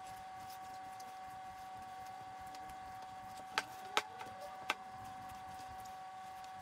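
Faint steady hum, with three sharp clicks a little past halfway as hands work bread dough in a glass mixing bowl.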